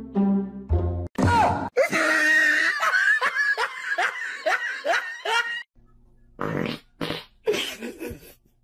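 A snatch of plucked-string music, then a laughter sound effect: laughing in quick repeated bursts for several seconds, followed by a few short, quieter noises.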